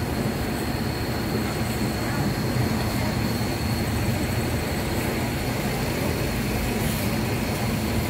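Steady rumbling din of a crowded fuel station forecourt: a queue of motorcycles around the pump, with a faint murmur of voices and a thin steady high whine above it.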